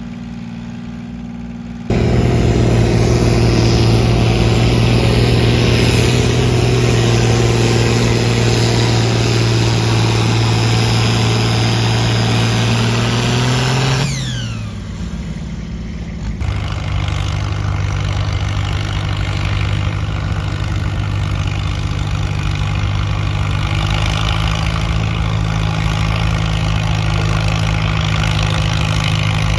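International Harvester Farmall pulling tractor's engine. It runs quietly at first, then suddenly much louder at steady high revs. About halfway through the revs drop with a falling pitch, and the engine settles into a steady, lower run.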